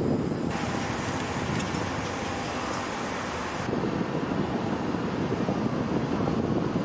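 Steady rumbling outdoor background noise, changing abruptly about half a second in and again just before four seconds.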